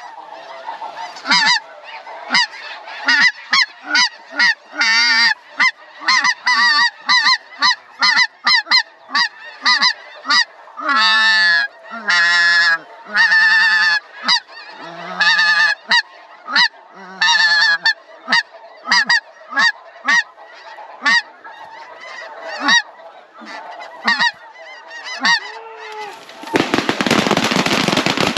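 Snow geese honking: a dense chorus of short, high, repeated calls, several a second. About two seconds before the end a loud, continuous crackling burst starts, a rapid volley of shotgun fire.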